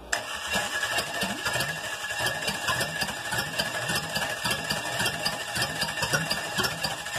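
Chevrolet 305 small-block V8 being turned over by its starter motor, cranking in an even, steady rhythm.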